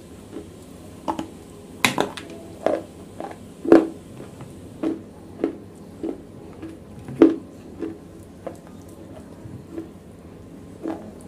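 Close-miked crunching and chewing of wet, broken black chunks: a run of irregular crisp crunches about every half second, two of them much louder about 3.5 and 7 seconds in, thinning out near the end.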